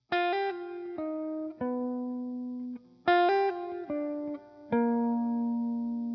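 Background music: a clean plucked guitar phrase of single notes, each ringing out and fading, played twice over.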